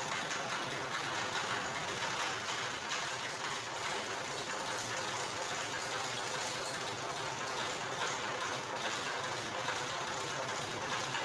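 Motor-driven roller sugarcane juice press running steadily, its motor and rollers turning with a constant mechanical hum.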